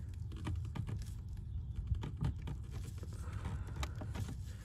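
Small scattered clicks and light rattles of metal as a Mercedes-Benz W204 steering column's splined shaft is worked out of its steering coupling by a gloved hand, over a steady low hum.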